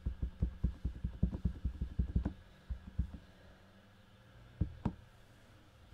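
A clear acrylic stamp block is dabbed rapidly on an ink pad to ink the rubber stamp: a quick run of light knocks about six a second for the first two seconds or so. A few separate knocks follow.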